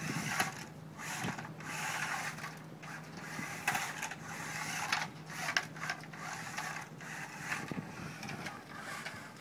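Small radio-controlled combat robot's electric drive motors whirring in short surges as it drives and turns, its wheels scrubbing on rough concrete.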